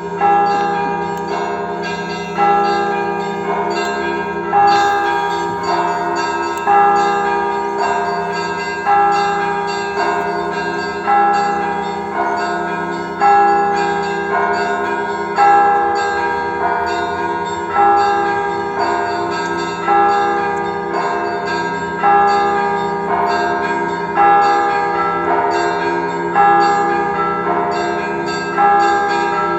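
Russian Orthodox cathedral bells ringing a peal: a pattern of strikes repeating about every two seconds, with smaller bells chiming quickly over the sustained hum of the larger bells.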